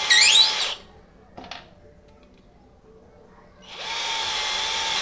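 Ingco cordless drill driving screws into a wooden block in two short runs with a steady motor whine. A loud high squeal rising in pitch comes during the first run, the loudest sound here, and there is a short click between the runs.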